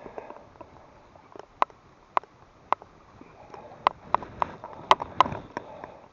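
A series of irregular sharp knocks and clicks over a faint background hiss, spaced out at first, then coming close together about four to five seconds in.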